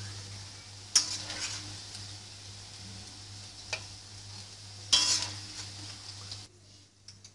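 Okra sizzling as it is stir-fried in a wok, with a metal spatula scraping and knocking against the pan: two loud scrapes about one second in and about five seconds in, and a lighter knock in between. The sizzle drops away near the end.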